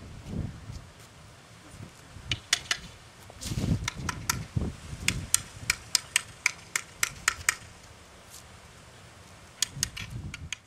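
A stick tapped against a concrete driveway as an improvised distraction for a puppy: a run of sharp clicks, about two to three a second, from about two seconds in to past the middle, and a few more near the end. Low dull thuds come in among them.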